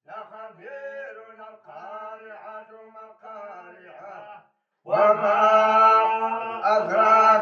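A group of men chanting together in unison: faint at first, then, after a short break about four and a half seconds in, loud and close.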